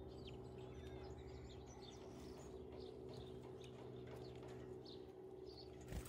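Faint, high, short chirps of small garden birds, many scattered calls throughout, over a steady low hum. A single sharp tap near the end.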